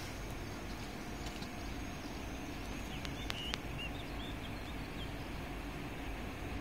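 Steady low outdoor rumble with a few short bird chirps about halfway through, preceded by two sharp clicks.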